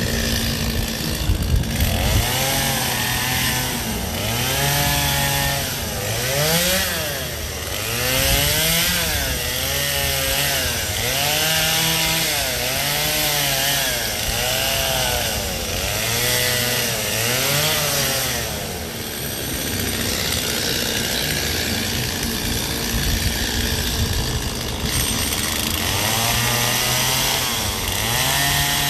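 Gas chainsaw cutting into a block of ice, its engine revving up and dropping back again and again, about once every second or two. Past the middle it holds a steadier note for several seconds, then the rev-and-drop starts again near the end.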